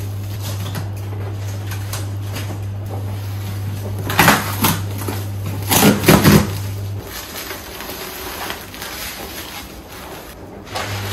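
Cardboard box and plastic stretch wrap being cut and torn open by hand, with loud ripping and crinkling around four and six seconds in, then softer rustling of bubble wrap. A steady low hum runs underneath and drops out about seven seconds in.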